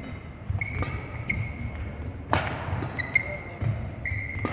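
Badminton rally: court shoes squeaking repeatedly on a wooden sports-hall floor over dull footfalls, with two sharp cracks of a racket striking the shuttlecock about two seconds apart.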